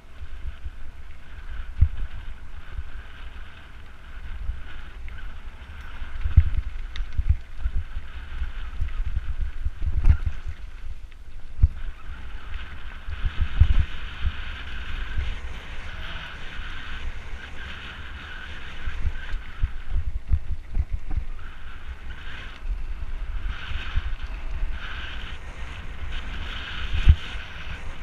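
Mountain bike rolling down a rough gravel track, heard through a bike-mounted camera. Wind buffets the microphone over a steady rumble, and the camera jolts over stones in frequent knocks. The loudest knock comes near the end.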